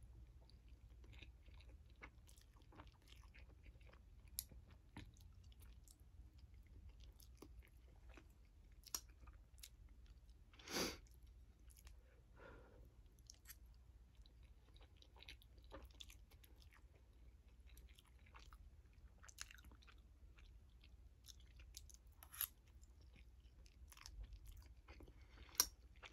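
Faint chewing and slurping of instant noodles close to the microphone, with many small wet mouth clicks. One louder short mouth noise comes about eleven seconds in, and a sharp click near the end.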